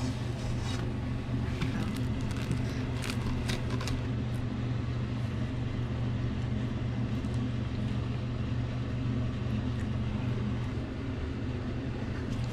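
A steady low droning hum, with a few light clicks and taps in the first few seconds.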